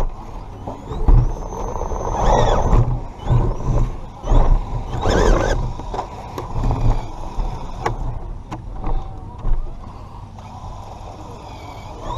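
Redcat Gen7 Pro RC rock crawler's electric motor and gearbox whining in uneven surges, rising and falling in pitch as it is throttled over rocks. Scattered knocks and scrapes come from the chassis and tyres on the rocks.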